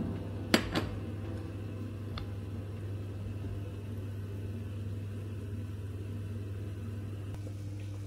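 A metal slotted spoon clinks twice against glass about half a second in, with a fainter tap a couple of seconds later, as an egg is slid into a pan of hot water for poaching. Under it a kitchen appliance hums steadily and low.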